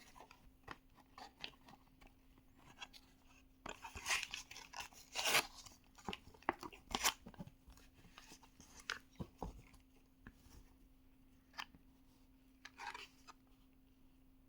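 Hands opening Hot Wheels die-cast car packaging: plastic blister and card crinkling, tearing and scraping, with scattered clicks and taps, busiest around the middle, over a faint steady hum.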